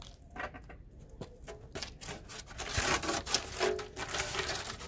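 Hand tool work on the car, likely screwdriver work: scattered clicks, then about two seconds in a denser scraping, rubbing noise with more clicks.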